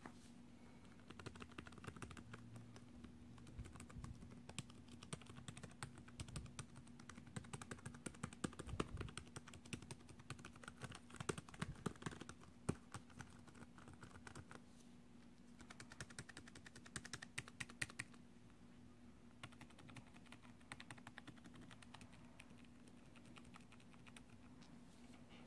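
Typing on the laptop keyboard of a 2017 Lenovo ThinkPad X1 Yoga: a long, fast run of faint key clicks, a short pause, a shorter run, then a few scattered keystrokes. A faint steady hum lies underneath.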